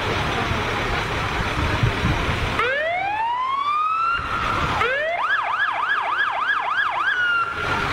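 Fire engine's electronic siren over the rumble of the truck engine: about two and a half seconds in it winds up in a rising wail, rises again, then switches to a fast yelp of about three swoops a second before holding a steady tone near the end.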